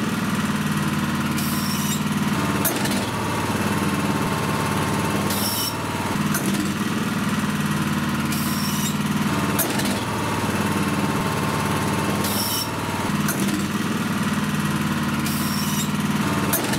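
Honda HS970 snowblower engine running while its electromagnetic clutch is switched on and off again and again. Each cycle brings a sharp click and a brief high squeal ("kee") as the clutch lets go, about every three to four seconds. The squeals come from the clutch before and after its air gap was adjusted, which is meant to make the release cut off short.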